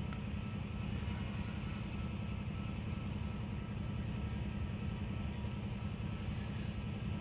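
Diesel locomotive engines running in a steady low rumble, with a faint steady whine above it.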